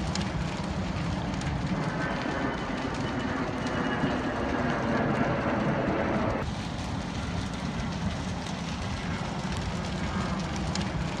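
Steady rumbling outdoor noise with faint crackles, changing abruptly about six seconds in.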